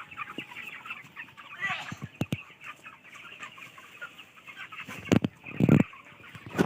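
A large flock of farmed chickens clucking and chirping continuously, with a few sharp knocks in between; the loudest knocks come about five seconds in.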